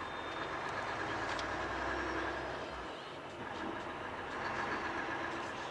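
Volvo semi-truck running on the move, heard from inside the cab, with a steady whine that fades briefly about three seconds in and comes back.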